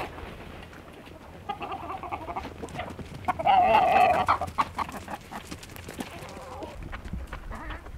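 Chickens clucking, the loudest and longest call about three and a half seconds in, over scattered small clicks and knocks.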